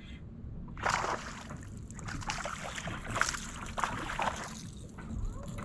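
A hooked largemouth bass splashing at the water's surface beside the boat as it is reeled in on a topwater popper, in uneven bursts of splashing from about a second in, over a low steady rumble of wind on the microphone.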